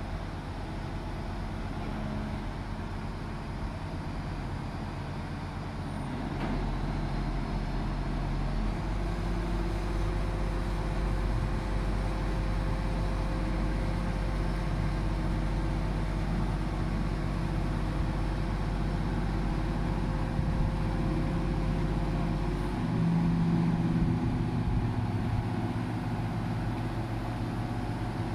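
Diesel engine of a 150-tonne Grove truck crane running steadily under hoisting load. The engine note rises about a quarter of the way in and shifts again near the end as the crane lifts the armoured car.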